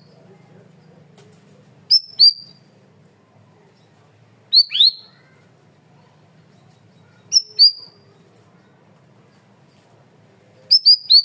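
Cucak rawis (bayeman) songbird calling in short, sharp, downward-sweeping whistled notes, mostly in quick pairs, repeated every two to three seconds with a run of three near the end, over a faint low hum.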